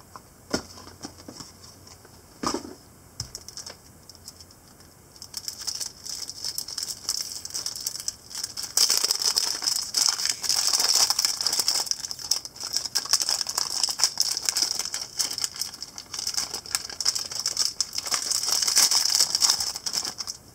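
Thin plastic wrap crinkling as it is peeled off a new stickerless 3x3 speed cube (QiYi X-Man Tornado), mixed with the quick clicking of the cube's plastic pieces as it is handled and turned. The crackle grows much busier and louder about nine seconds in.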